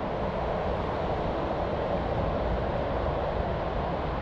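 Steady rush of a river running high and fast, mixed with wind buffeting the microphone.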